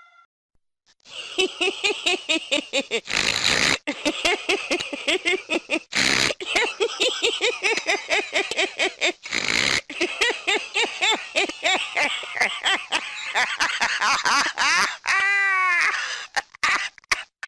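A man laughing hard: long runs of rapid 'ha-ha-ha' pulses, several a second, broken by sharp gasping breaths, ending in a short falling laugh near the end.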